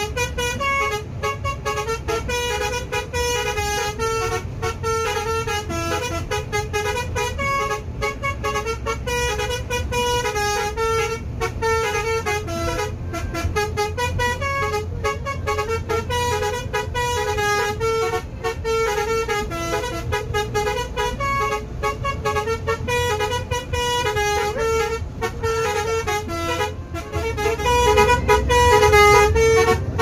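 Telolet bus air horn playing a continuous string of short melodic notes over the steady low rumble of the bus engine and road, getting louder near the end.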